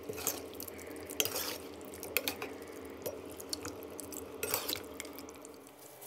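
A spoon tossing sliced pork, chillies and garlic through a wet lime dressing in a bowl. The sound is irregular wet clicks and squelches, with the spoon now and then knocking against the bowl.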